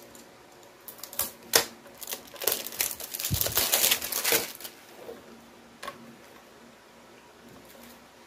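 Thin plastic wrap crinkling and tearing as it is pulled off a clear hard-plastic camera case, with sharp clicks from the case. A few clicks come first, then a couple of seconds of dense crinkling, and one more click about six seconds in.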